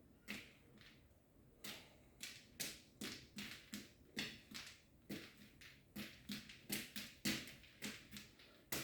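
Faint, rhythmic light taps or thumps, about two a second, from a person's warm-up exercise movements.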